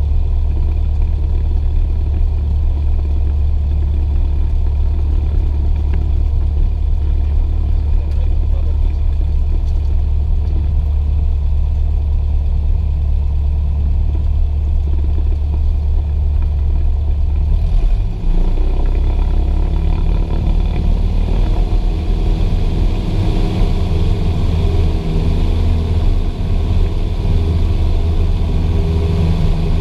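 Cessna 172's piston engine and propeller running steadily, heard from inside the cockpit. A little past halfway the engine note changes, taking on a higher, harsher sound as power is added.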